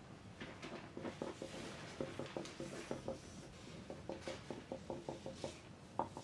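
Pencils writing on paper at desks: faint, quick scratches and taps, several a second, in short runs with a brief pause a little past the middle.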